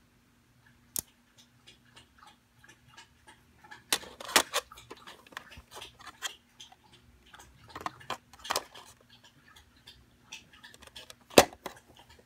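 Small tools from a precision screwdriver kit being handled: irregular clicks, taps and clacks of small bits and plastic parts, with a few sharper clacks about four seconds in, in the middle and one loudest near the end.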